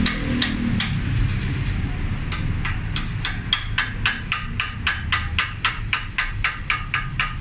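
Hammer striking a stainless steel tube clamped in a bench vise: sharp metallic taps, a few scattered ones at first, then a steady rhythm of about four a second from around two seconds in.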